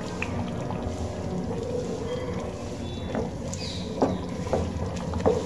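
Thick chana dal boiling in a pan, a steady low bubbling, while a wooden spatula stirs it, giving a few short knocks and scrapes against the pan.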